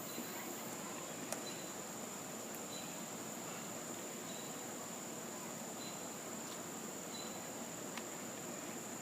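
A steady high-pitched whine, with a faint click just over a second in and another near the end.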